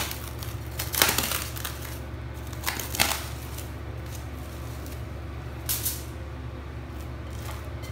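A few short handling noises, hands touching the risen dough and its glass bowl, over a steady low background hum.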